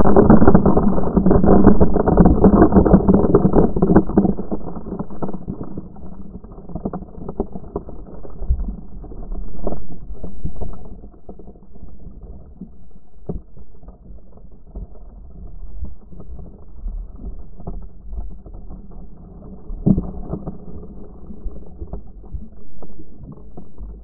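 Sea surf churning over and around a submerged action camera, muffled with nothing high in it: a loud rush for the first few seconds that fades to a quieter wash, with scattered low knocks.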